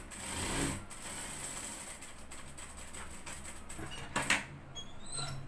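Jack industrial sewing machine running steadily as it stitches a narrow fabric strap. It stops about four seconds in with one sharp click.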